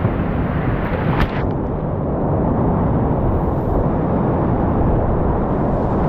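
Whitewater rapids rushing loudly around a kayak, picked up close by a camera on the paddler, with a single short click about a second in.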